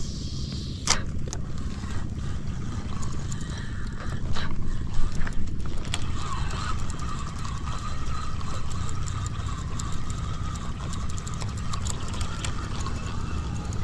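Spinning reel cranked to retrieve a cast lure. A few sharp clicks come in the first seconds, then a steady, wavering whir with fine ticking from about six seconds in, over a low steady rumble.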